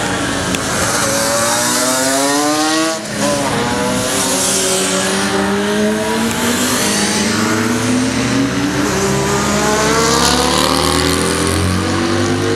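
Classic racing motorcycles accelerating hard, engine pitch climbing steadily, a sharp drop about three seconds in as one shifts up, then climbing again as several bikes pull away together.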